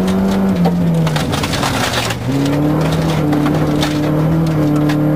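Volvo 940 rally car on a gravel stage, heard from inside the cabin: the engine note falls twice in the first two seconds, while gravel crackles and rattles against the underbody for about a second, then the engine pulls steadily again at a higher note.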